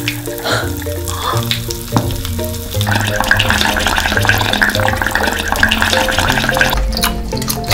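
Background music throughout. From about three seconds in, a wet crackling slurp of liquid being sipped from a bowl through twisted candy straws joins it and stops shortly before the end.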